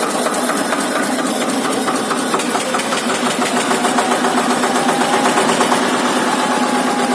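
Eicher Xtrac 242 tractor's single-cylinder air- and oil-cooled diesel engine, with no radiator, idling steadily.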